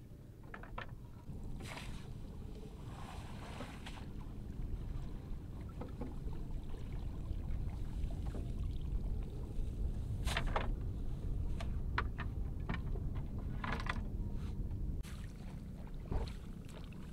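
Water splashing and dripping, with wet water weeds rustling as they are handled in a wooden boat, over a steady low rumble. A few sharper splashes stand out about ten and fourteen seconds in.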